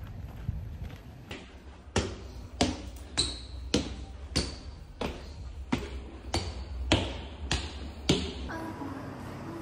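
Footsteps of a person in sneakers climbing a stairwell with hard stone treads: about eleven sharp, evenly paced steps, a little over half a second apart, starting about two seconds in.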